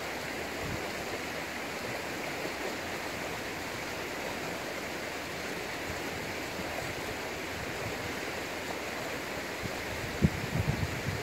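A steady rushing noise, with a few low thumps near the end.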